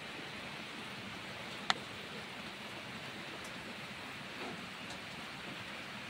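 Steady rain falling, an even hiss throughout, with a single sharp click about two seconds in.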